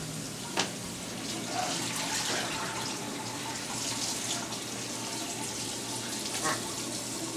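Bathroom tap running steadily into a sink, the water splashing over a dark item being washed under it by hand. A short knock sounds about half a second in.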